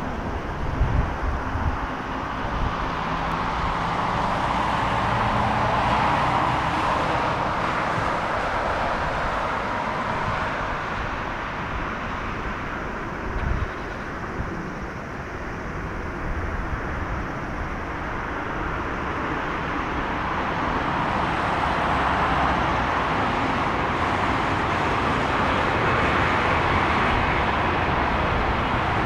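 Boeing 767-300BCF freighter's jet engines during touchdown and landing rollout: a steady jet rush that swells a few seconds in and again near the end as the aircraft rolls toward and along in front of the listener, with a few low thumps.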